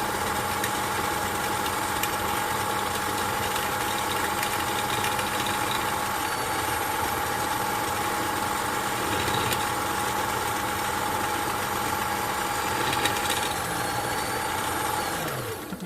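Kenmore sewing machine's motor running flat out with the foot pedal fully down, winding a bobbin: a steady whine that runs down and stops just before the end.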